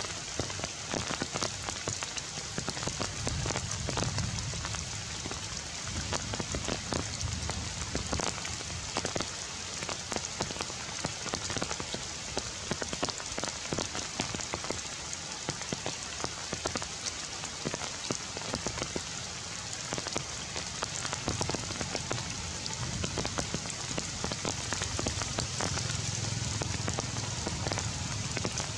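Steady rain falling on forest leaves, a continuous hiss with many individual drops ticking sharply.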